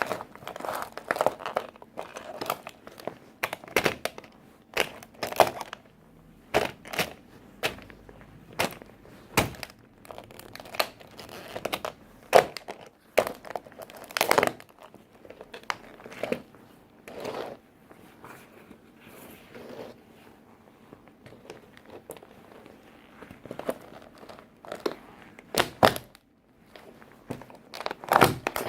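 Toy tractor being stomped and crushed under work boots: repeated, irregular cracks, crunches and thuds of the toy breaking.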